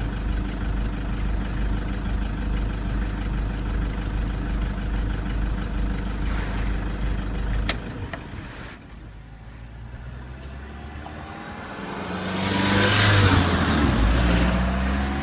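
Vehicle engine idling steadily, then switched off with a click about eight seconds in. A few seconds later a louder, rising engine sound comes in, like the engine revving.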